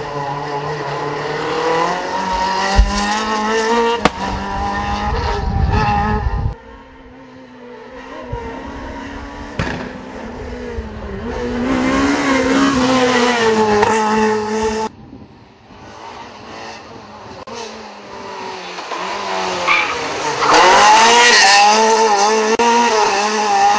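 Rally car engine revving hard as it drives past, its pitch climbing and dropping with gear changes and lifts off the throttle. The sound cuts off abruptly twice, about six and fifteen seconds in, and a new pass starts after each cut.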